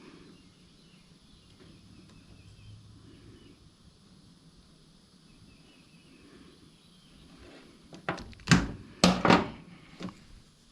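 Faint handling noise of small parts and tools on a workbench, then a quick cluster of loud knocks and clatters about eight seconds in, with one more a second later.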